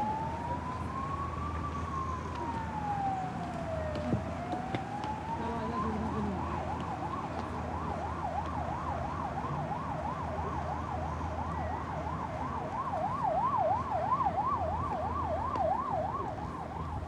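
An emergency vehicle siren in a slow wail, rising and falling over a few seconds, then switching about six seconds in to a fast yelp of about three rises and falls a second.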